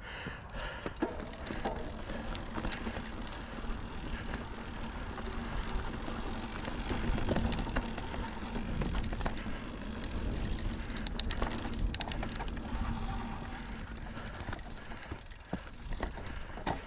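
Santa Cruz Bronson mountain bike ridden along a dirt trail: steady tyre and wind rumble with scattered clicks and rattles from the bike over bumps, and a burst of sharp rattling about eleven seconds in.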